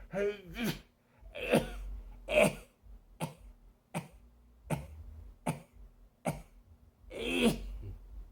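A man's allergy fit of sneezing and coughing: about ten short, sharp bursts, roughly one a second, with a longer one near the end.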